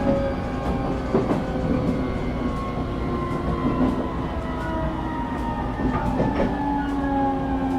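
Inside a moving electric train carriage: a steady rumble of wheels on the rails, with a few clacks over rail joints. Several whining tones slide slowly down in pitch, as the motors wind down while the train slows for the next station.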